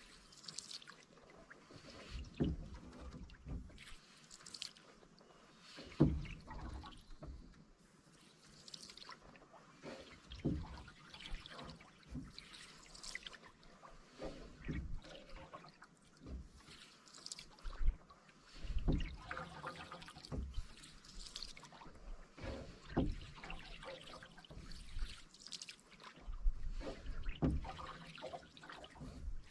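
Canoe being paddled: the blade dips and pulls through the water about every two seconds, with splashes and drips and low thumps at each stroke.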